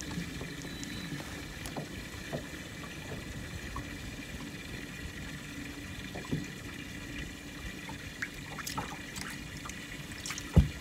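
Water lapping and trickling softly against a boat's hull, with a faint steady hum underneath and a few small scattered clicks.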